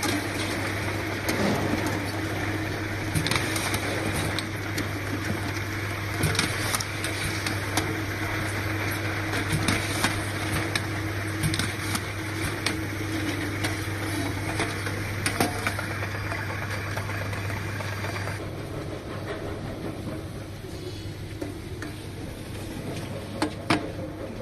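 Automatic powder filling, capping and labeling line running: a steady machine hum with irregular clicks and knocks. About eighteen seconds in, the higher hiss drops away and the machinery runs on quieter.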